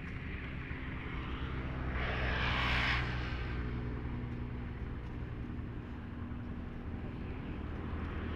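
Engine of a passing motor vehicle: a steady low engine drone, with a swell that builds to a peak about three seconds in and then fades as it goes by.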